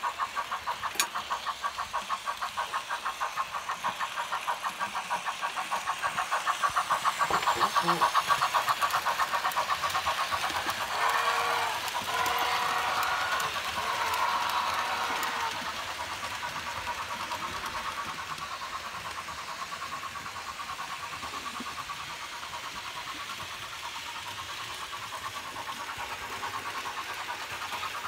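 Märklin HO Union Pacific Mikado 2-8-2 steam locomotive model running on the layout, its sound giving a fast, even rhythmic chuff. Partway through its whistle sounds in four blasts, then the running sound carries on more quietly.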